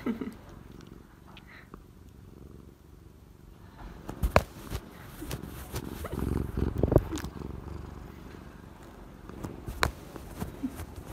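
A cat purring close to the microphone in a steady low rumble, with a few sharp taps and a louder stretch of rubbing and knocking about halfway through as its paw pats at the phone.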